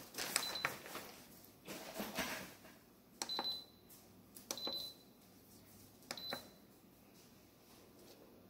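Instant Pot electric pressure cooker's control panel beeping as its buttons are pressed: four short high beeps, each with a light click, spread over several seconds while the sauté function and its time are set.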